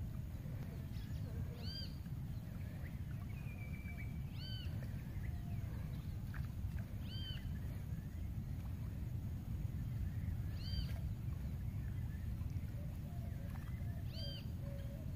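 An animal call, a short arched note with overtones, repeated five times about every three seconds over a steady low rumble.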